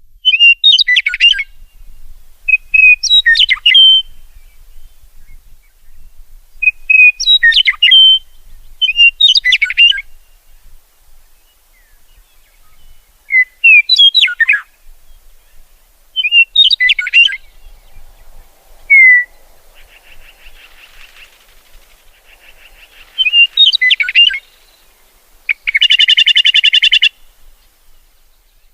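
Songbird song: short phrases of quick, sweeping whistled notes repeated every two or three seconds, with a loud buzzy trill near the end.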